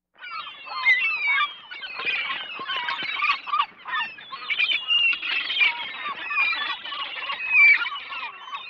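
A flock of gulls calling all at once, many overlapping squawks and cries. It starts suddenly about a quarter of a second in.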